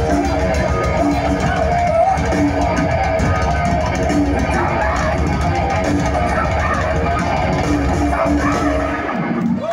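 Live hard rock band playing loud, with distorted electric guitar, bass guitar and drums, heard from within the crowd at a club gig. The music drops off just before the end.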